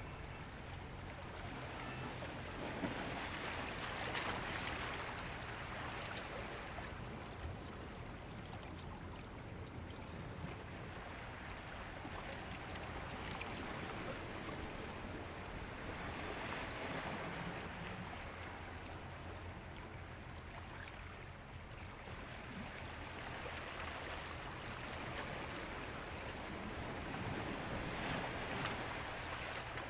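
Ocean waves washing in, a hiss that swells and falls back three times, roughly every twelve seconds.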